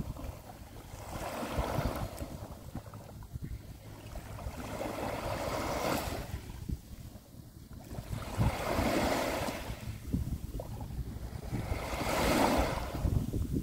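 Small waves washing in and out on a sandy shore, each wash swelling and fading about every three to four seconds. Wind buffets the microphone with a constant low rumble underneath.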